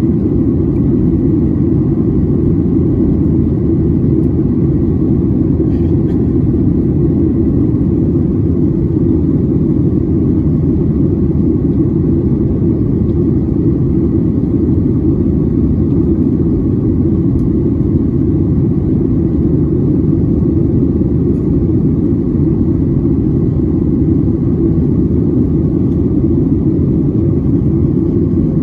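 Steady cabin noise inside a Boeing 737-800 in flight: the low rumble of its CFM56-7B turbofan engines and the airflow over the fuselage, heard from a window seat, with a faint high steady whine.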